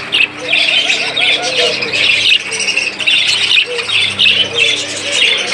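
A cage full of budgerigars chattering and chirping together: a dense, continuous warble of many short high calls overlapping one another.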